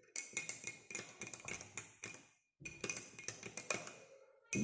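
Spoon stirring honey, cinnamon and lemon juice in a glass, clinking against the glass in quick repeated strikes with a light ringing tone, in runs broken by brief pauses.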